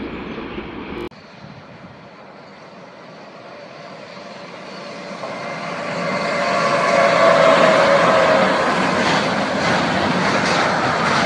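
After an abrupt cut about a second in, an electric locomotive hauling an intermodal freight train approaches and passes close by: a rising rumble with a motor whine that peaks as the locomotive goes past, then the steady rolling of the freight wagons with rhythmic clacks of wheels over rail joints.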